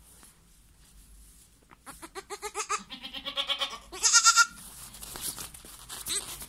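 A young goat kid bleats: a long quavering bleat starts about two seconds in and runs straight into a louder, higher bleat around four seconds, with a fainter short call near the end. These are a kid's calls for its mother.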